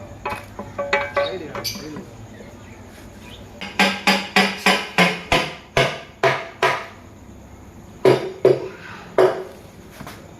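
Series of sharp metallic strikes, each with a brief ringing tail. Some scattered taps come first, then a quick run of about ten strikes, roughly three a second, and a few more near the end, as metal tools or parts are knocked together during engine work.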